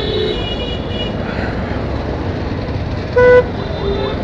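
A vehicle horn gives one short, loud toot a little after three seconds in, over the steady engine and road rumble of a Honda CB Hornet 160R motorcycle riding along.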